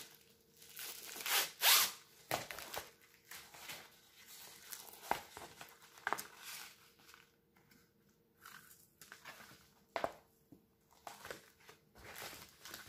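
Paper wrapping and a diamond painting canvas with its plastic film being handled and unfolded, rustling and crinkling in irregular bursts. The loudest rustle comes about one to two seconds in.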